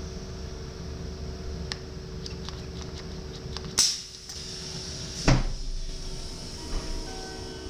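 Passenger door of an SGMm Sprinter electric train opening after its door-open button is pressed: a few light clicks, a sharp snap near the middle, then a loud thump as the door slides open. A steady hum from the train runs underneath.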